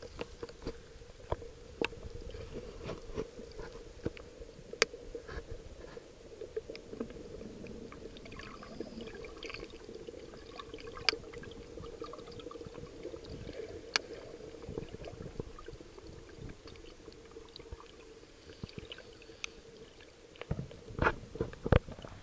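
Muffled underwater ambience in a shallow creek, heard through a submerged waterproof camera: a steady low hum with scattered sharp clicks and ticks. Near the end come a few louder splashes as the camera breaks the surface.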